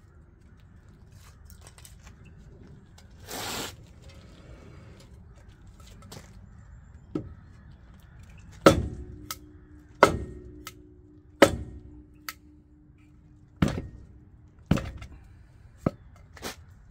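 End of a wooden 2x4 struck against the lower sidewall of a tyre on an aluminium wheel, to shock the wheel loose where it has corroded and fused onto its steel hub: a run of about nine sharp thuds, a second or so apart, starting about seven seconds in. A low ringing tone hangs on for a few seconds after the first heavy blows, and the wheel is still stuck.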